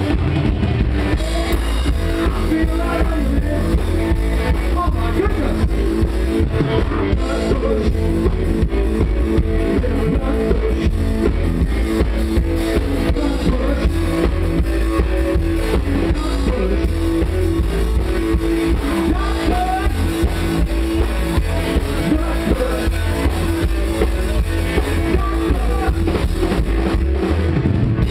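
Live country rock band playing loud and steady, with drum kit and electric guitar.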